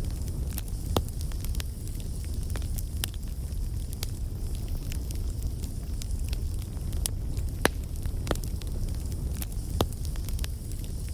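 Bonfire burning with a steady low rumble of flames and irregular crackles and pops, a few of them sharp and loud.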